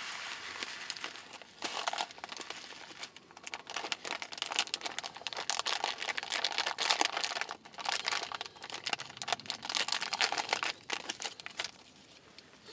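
Irregular crinkling and rustling, as of paper or plastic being handled and crumpled, in fits and starts with brief pauses.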